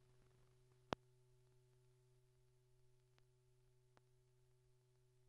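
Near silence on an old film soundtrack: a faint steady low hum, with a single sharp click about a second in and two faint ticks later.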